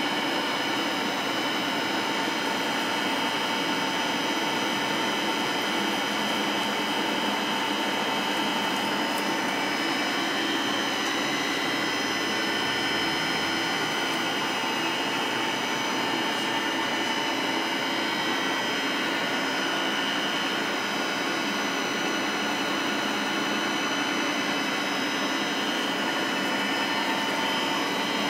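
Vertical milling machine running, its end mill cutting a metal block under mist coolant: a steady motor and spindle whine mixed with the hiss of the coolant spray, unchanging throughout.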